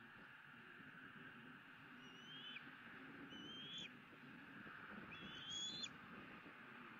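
Three high, thin whistled calls from a bald eagle, each about half a second long, rising slightly and then dropping off sharply at the end; the last one is the longest. A faint steady hiss runs underneath.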